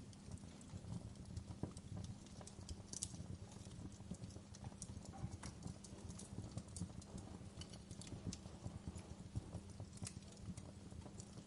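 Wood fire in a fireplace crackling, with irregular sharp pops and snaps, several a second, over a steady low rumble of the flames.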